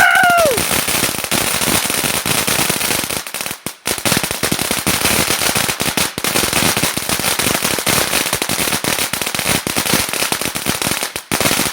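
TNT Fireworks Showcase Cone fountain burning, its crackling stars giving a dense, continuous crackle, with a brief lull about three and a half seconds in.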